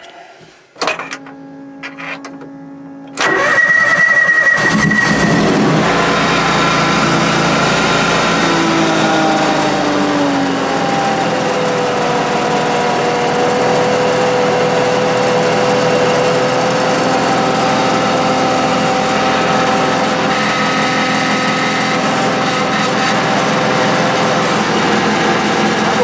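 John Deere X585 garden tractor's gasoline engine cranked over by the starter for about two seconds, catching about three seconds in, then running steadily; its pitch falls a little a few seconds after it catches.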